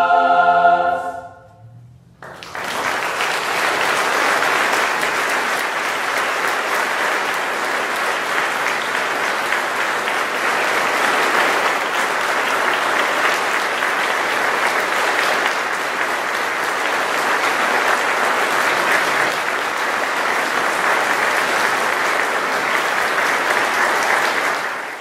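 A large mixed choir's held final chord cuts off about a second and a half in and dies away. Then the audience breaks into steady applause that lasts to the end.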